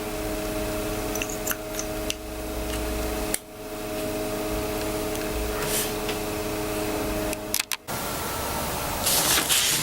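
Steady electrical hum or fan drone with several fixed tones, cutting out abruptly twice, with a few faint clicks of small gun parts being handled.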